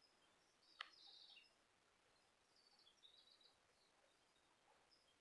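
Near silence outdoors with faint, short bird chirps, twice, and a single soft click about a second in.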